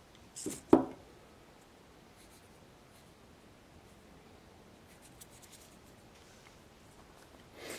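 Small objects being handled on a workbench: a short rustle and a sharp click about a second in, then quiet room tone with a few faint ticks, and a brief scraping rustle near the end.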